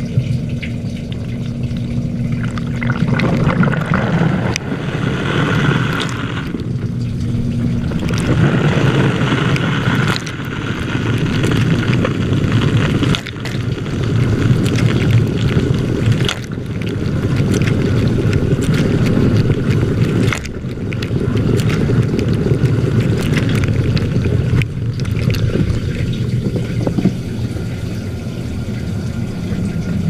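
KitchenAid Architect Series II KDTE304DSS dishwasher in its wash cycle, heard from inside the tub: water jets spraying and splashing over the racks and dishes in a steady rush. A faint low hum comes and goes, and the sound breaks off abruptly several times.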